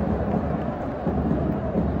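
Stadium crowd of football supporters singing and chanting together in a steady, dense din.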